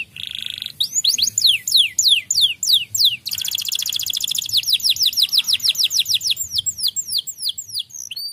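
Domestic canary singing. A buzzy note opens the song, then comes a run of high notes that each sweep down in pitch, about four a second. A few seconds in there is a fast rolling trill, and after it the falling notes return.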